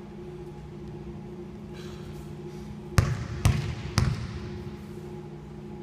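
Basketball dribbled three times on a hardwood gym floor, about half a second apart, each bounce echoing in the hall: the player's routine before a free throw. A steady low hum runs underneath.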